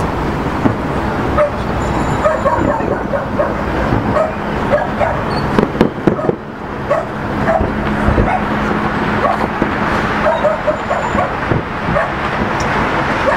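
Fireworks booming and crackling in a show, with a dog barking again and again over them.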